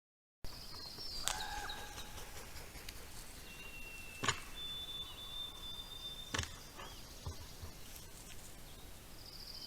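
Faint woodland ambience from a trail camera's microphone, with a few short, thin bird whistles and three or four sharp clicks or snaps spread through it.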